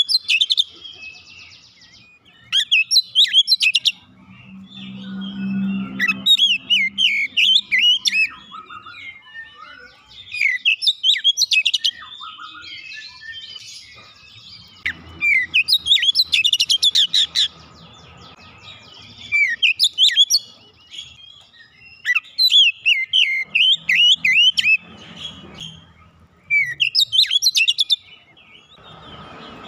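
Oriental magpie-robin singing loudly in repeated phrases of rapid, varied chirps and whistles. Each phrase lasts one to three seconds and a new one starts every few seconds.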